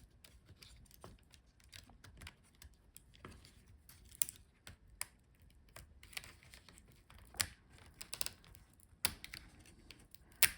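Irregular light clicks and taps of small laptop parts and a tool being handled while the power button board is taken out, a few clicks sharper than the rest.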